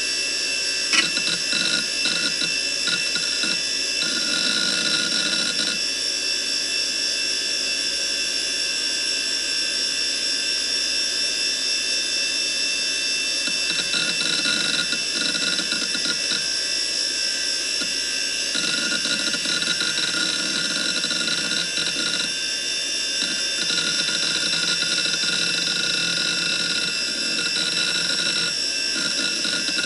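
Desktop IDE hard drive spinning with a steady high whine while its heads seek in irregular chattering bursts a few seconds long, reading the disk as Windows 2000 boots. A sharp click about a second in.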